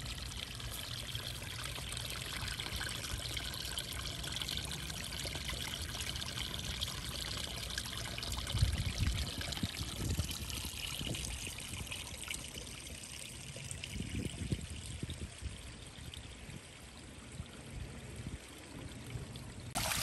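Shallow water trickling and babbling over stones in a small hand-built, stone-lined stream, a steady gurgle with a few low thumps around the middle. Right at the end it gives way to the louder splash of a small stone waterfall.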